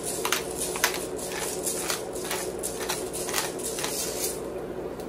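Hand-twisted pepper mill grinding over a pan: short gritty crunching strokes about three a second, stopping about four seconds in, over a steady low hum.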